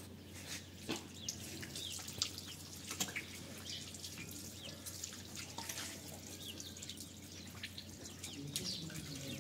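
Water poured from a plastic jug, splashing and dripping onto a tiled floor in many small, irregular drops.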